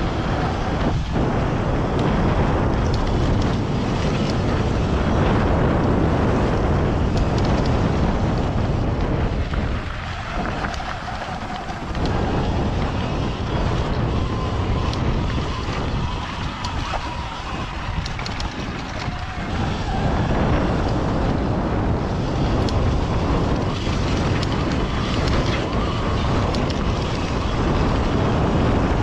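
Heavy wind noise on the microphone of an electric dirt bike riding a rocky dirt trail, with tyres crunching over gravel and scattered clicks of small stones. The noise eases a little twice, about ten seconds in and again between about sixteen and twenty seconds.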